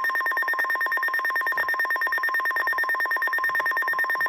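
Electronic emergency-alert tones: a high tone pulsing rapidly over a steady tone near 1 kHz, typical of the 1050 Hz weather-radio warning alarm. The pulsing cuts off near the end, leaving the steady tone.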